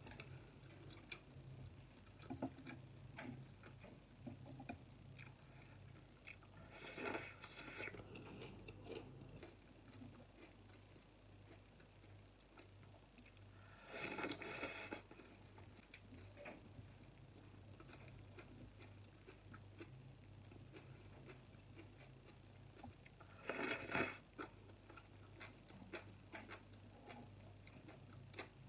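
A person eating spicy hot pot with glass noodles, heard close: soft chewing and small mouth and chopstick clicks, with three louder slurps spread through. A low steady hum runs underneath.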